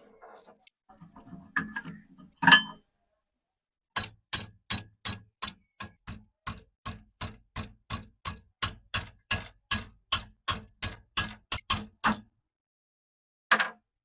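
Metal parts clinking, then about two dozen evenly spaced hammer taps on metal, roughly three a second, each a dull knock with a bright ring, stopping about two seconds before the end; one more tap comes near the end.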